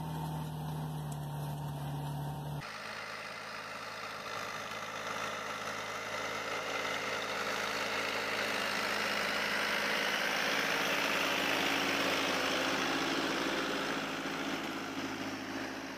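Mini tractor engine running under load while pulling a two-furrow plough through soil. About two and a half seconds in, the sound cuts abruptly from a steady low hum to a different engine sound, which grows louder, peaks around ten to twelve seconds in, then eases off.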